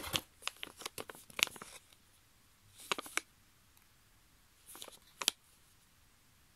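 Foil sample sachet crinkling and rustling as it is handled: a run of small crackles in the first couple of seconds, then brief rustles about three and five seconds in.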